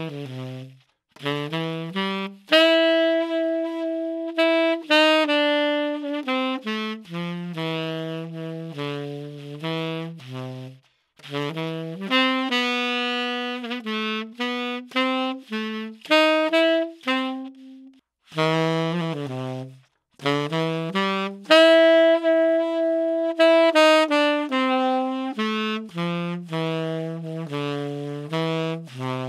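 Solo tenor saxophone playing a jazz phrase of short runs and held notes with short breath pauses, recorded raw and close through a dynamic microphone with no reverb or EQ. The phrase starts over about two-thirds of the way through, the first take through an Audio-Technica ATR2100 and the later one through a Shure SM57.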